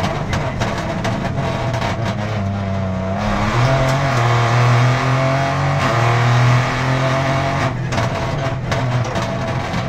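Peugeot 208 Rally4's turbocharged three-cylinder engine driven hard, heard inside the cabin, its pitch climbing and dropping in steps through gear changes on the sequential gearbox, with a downshift from fourth to third. A quick run of sharp cracks comes near the end.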